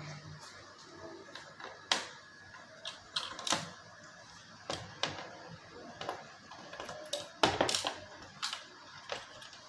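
Scattered sharp clicks and knocks, a dozen or so at uneven intervals, from tools and parts being handled while working on an LED TV's board. The loudest knocks come in a quick pair about three-quarters of the way through.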